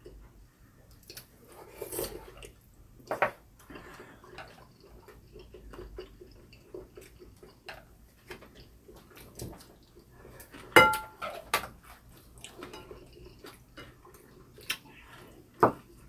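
Chopsticks and spoons clicking and scraping against ceramic bowls during a meal, in scattered light taps. One louder ringing clink comes a little before eleven seconds in.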